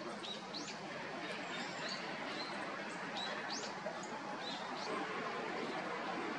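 Small songbirds giving thin, high, short call notes, about a dozen scattered irregularly, over a steady background hiss.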